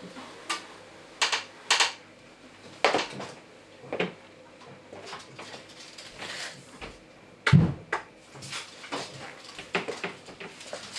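Scattered clicks, taps and knocks of hands handling fittings and fabric, with one heavier thump about seven and a half seconds in.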